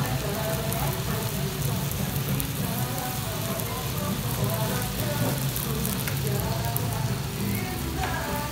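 Raw beef and chicken sizzling on a hot grill plate, a steady fine crackle, with faint voices in the background.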